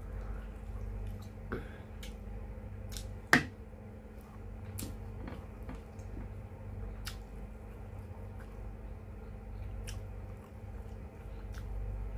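Close-up eating sounds of vinegar-stewed fish (paksiw na isda): wet chewing and squishing with scattered small clicks, and one sharp click about three seconds in. A steady low hum runs underneath.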